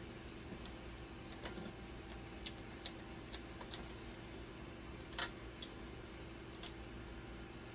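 Irregular small clicks and taps of a hand tool and gloved fingers against a dialysis machine's front panel during screw repair, about a dozen, the loudest about five seconds in, over a steady low hum.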